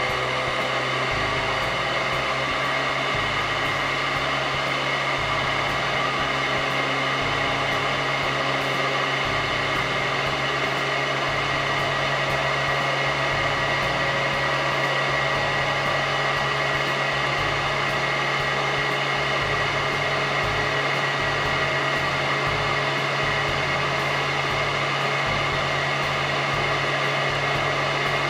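Royal Metal 8200 metal upright vacuum cleaner running steadily, its motor giving an even whine that holds one pitch.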